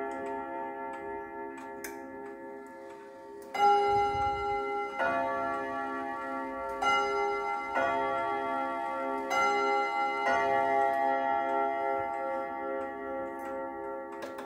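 Gustav Becker quarter-striking wall clock sounding the three-quarter hour on its gongs: three pairs of ringing strikes, each pair two notes, the tones dying away slowly between them.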